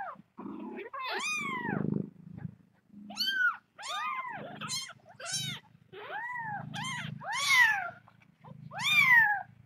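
Young kittens mewing: about ten short, high cries in a row, each rising then falling in pitch.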